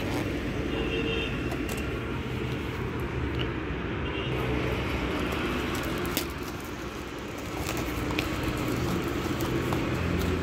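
Steady low mechanical hum, with a few sharp clicks and paper rustles as a cardboard mic box is pulled and torn open by hand.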